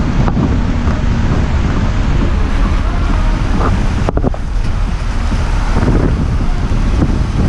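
Heavy wind buffeting the microphone of a motorcycle at speed, a steady rushing roar strongest in the low end, with a brief drop in the hiss about four seconds in.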